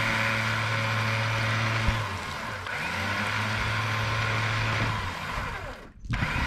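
Electric winch running under remote control, reeling in its line to take up the slack. It runs with a steady hum, stops briefly about two seconds in, runs again, and stops about five seconds in as the line comes tight.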